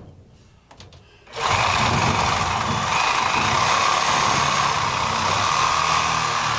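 Milwaukee Sawzall reciprocating saw starting suddenly about a second and a half in and running steadily as it cuts into a glued 90-degree pipe fitting.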